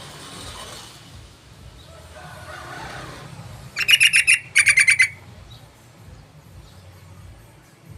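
Yellow-vented bulbul (trucukan) calling: two quick loud runs of rapid chattering notes, each about half a second long, about four seconds in.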